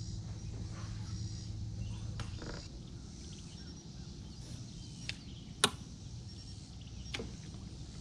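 A boat's electric trolling motor hums low and steady for the first two and a half seconds, then stops. Several sharp clicks follow, the loudest just past halfway.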